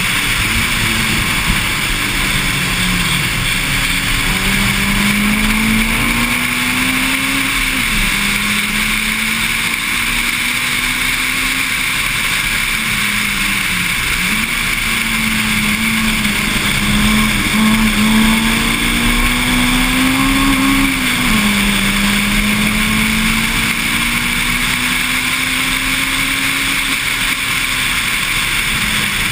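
Honda Civic EG9 SiR's 1.6-litre engine under hard acceleration on track. Its note climbs slowly, falls sharply twice at gear changes (about a quarter of the way in and again about two-thirds in) and dips briefly in between, over steady wind and road noise.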